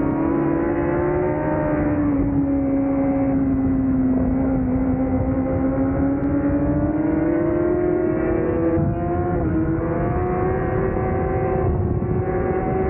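Honda CBR1000RR-R inline-four engine at high revs under racing load. The note holds, sags a little about two seconds in, then climbs slowly through the rest, with brief dips near nine and twelve seconds.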